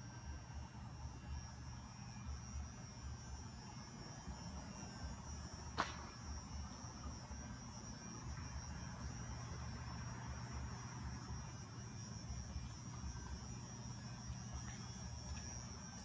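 Steady low hum with a faint high whine above it, and one sharp click a little before halfway.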